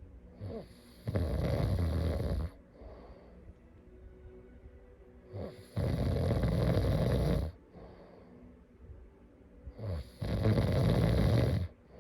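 A person snoring in sleep: three loud snores about four and a half seconds apart, each lasting about a second and a half and led in by a short, quieter catch of breath.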